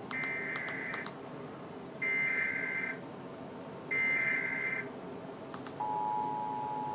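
Emergency Alert System SAME header: three bursts of rapid warbling data tones about a second apart, the digital code that opens an alert broadcast, here a required monthly test. Near the end the steady two-tone attention signal starts.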